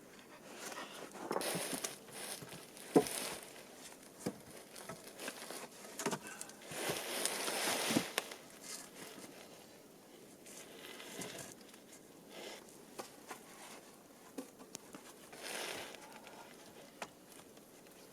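Branches and sticks rustling, crunching and knocking as they are handled, in irregular bursts. A sharp knock about three seconds in is the loudest sound.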